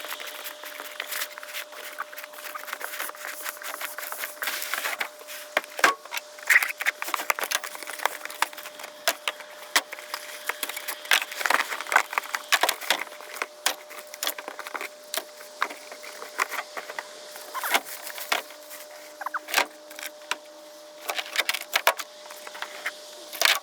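Cardboard box being opened and a pressure washer unpacked: irregular sharp clicks, knocks and rustling of cardboard and packing, over a faint steady hum.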